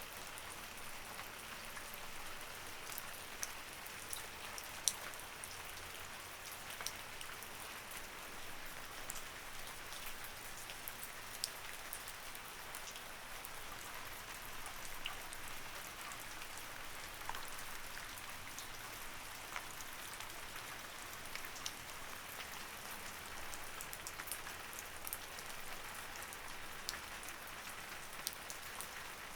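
Light rain falling steadily: an even hiss scattered with many small, sharp drop ticks.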